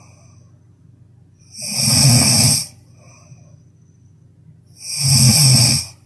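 A sleeping person snoring loudly: two long snores, about a second each and roughly three seconds apart, with quiet breathing between them.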